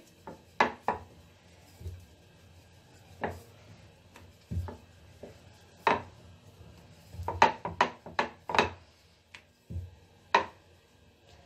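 Wooden rolling pin working dough on a marble rolling board while momo wrappers are rolled out: about a dozen irregular sharp wooden knocks and clacks, bunched in a quick run about two-thirds of the way through.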